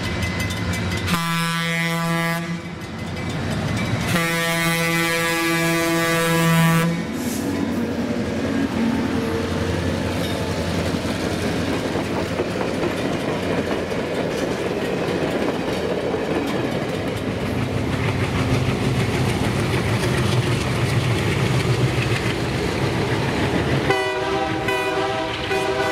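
Horn on vintage EMD diesel locomotives pulling a passenger train: two long blasts, the second one longer. After them comes a steady rumble of the train passing. Another horn blast starts near the end.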